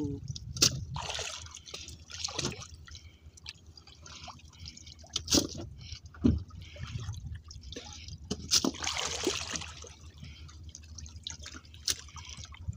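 Seawater dripping and splashing as the gill net and catch are handled aboard a small fishing boat, with a few sharp knocks scattered through.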